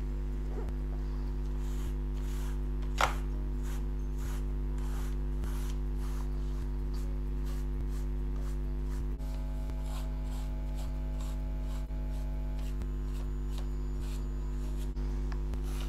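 Short scratchy rubbing strokes and light clicks of a small cleaning tool working dust out from between the rubber domes of a bare keyboard plate, with one sharper click about three seconds in. A steady low hum runs underneath.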